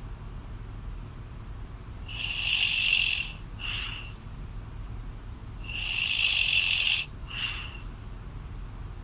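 A woman snoring loudly, heard through a phone call: two long snores about three and a half seconds apart, each followed by a shorter, softer one.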